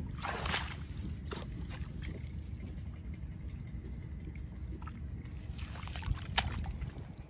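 Water splashing and trickling around a small wooden boat, with a few short splashes or knocks against a steady low rumble.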